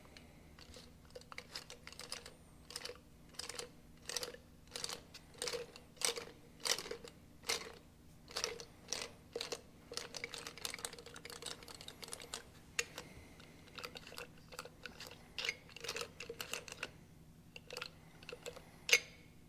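Small metal parts and hand tools clicking and tapping as a diesel injection pump is taken apart by hand: irregular light clinks, a couple a second, some with a short metallic ring.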